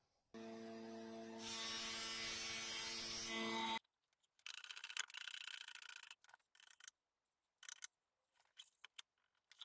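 A machine's electric motor hums steadily for about three and a half seconds, gets louder partway, and cuts off suddenly. It is followed by a scraping, creaking patch as the aluminium sheet is forced around the wooden former, and a few scattered clicks near the end.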